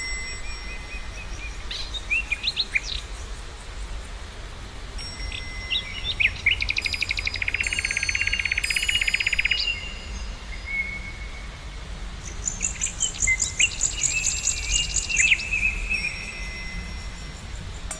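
Several songbirds singing and calling at once: short chirps, thin whistled notes and fast trills, with a long trill in the middle and high, ringing trills a little later. A low background rumble sits under the birds.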